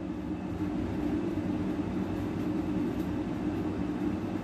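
Domestic cat purring steadily, a continuous low rumble while it sleeps pressed against a person's chest.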